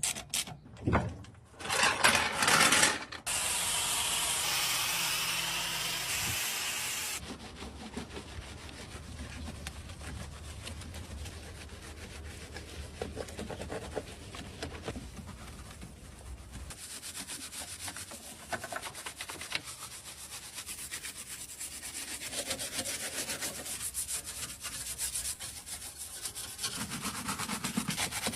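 Repeated rubbing and scrubbing, as of a brush or cloth worked over a surface. There are a few sharp knocks in the first three seconds and a louder steady hiss from about four to seven seconds in.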